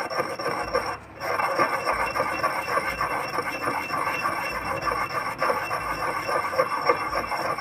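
Porcelain pestle grinding round and round in a porcelain mortar, working resorcinol wetted with strong alcohol: a continuous gritty scraping with a brief break about a second in.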